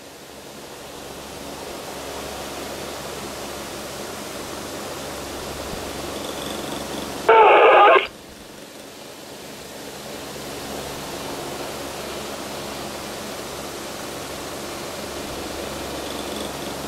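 Steady whooshing hiss of an electric desk fan running. About seven seconds in, a police radio scanner's speaker gives one short, loud burst of transmission lasting under a second.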